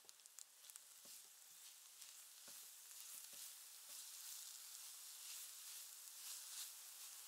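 Grated carrot and onion sizzling in oil in a pan while a wooden spatula stirs them, with a few soft knocks of the spatula against the pan in the first few seconds.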